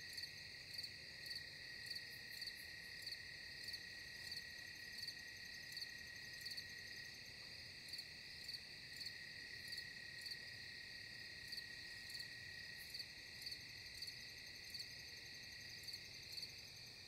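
Faint chorus of night insects: a steady high trill with regular chirps about twice a second.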